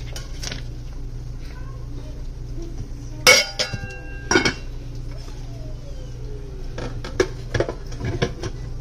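A glass rice-cooker lid with a metal rim clanks down onto the nonstick inner pot and rings briefly, with a second clank about a second later. Near the end come a few lighter knocks as the pot and lid are settled into the cooker body.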